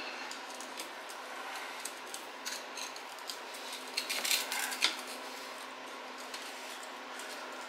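Screwdriver tip scraping and clicking against the edge of a GM 10-bolt rear axle's stamped-steel differential cover as it is pried loose from the housing, with a cluster of quick metal scrapes about four to five seconds in.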